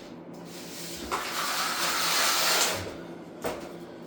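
A trowel scraping and pressing across an uncoupling membrane as it is stuck down into thinset. The rushing scrape starts about a second in and lasts nearly two seconds. A single knock follows near the end.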